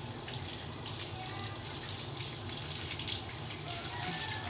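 Water from a garden hose running and splashing off a dog's wet coat onto a tiled floor, steady throughout.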